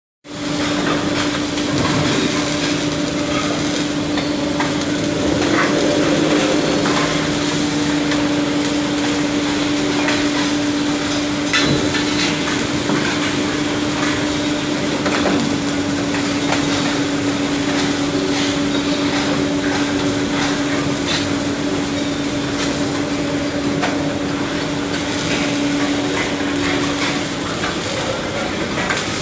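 Robotic GMAW (MIG/MAG) welding arc running continuously: a steady crackling hiss dotted with sharp pops, with a steady hum underneath that stops near the end.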